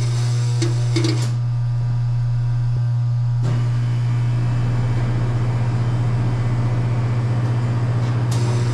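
Walk-in cooler's hermetic refrigeration compressor energized and humming loudly and steadily without starting: a locked or failed compressor, which the technician judges bad after brownout damage.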